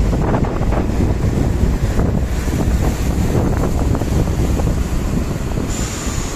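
A DB class 643 Talent diesel multiple unit moving past at close range: a steady rumble of engine and wheels on rail, with wind buffeting the microphone. A thin, high, slightly falling squeal starts near the end.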